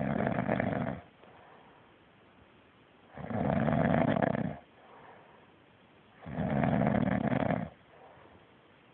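Loud snoring: three long, rasping snores, each lasting over a second, about three seconds apart: one at the start, one about three seconds in and one about six seconds in, with quiet breathing between.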